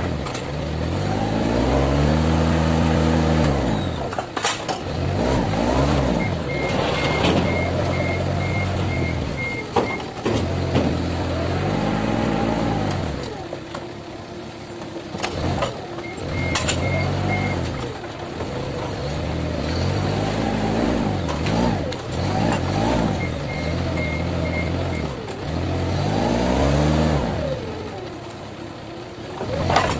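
Forklift engine revving up and down again and again as the hydraulic levers of the paper roll clamp are worked, its pitch rising and falling in long swells. A high alarm beeper sounds in several short runs of quick beeps, and there are a few sharp knocks.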